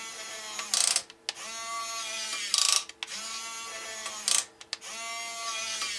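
HuiNa 1550 1/12-scale RC excavator's bucket motor and gearbox whining in four runs of about a second each. Each run ends in a short, louder burst of clicking, which is the slip clutch that protects the gears letting go as the bucket reaches the end of its travel.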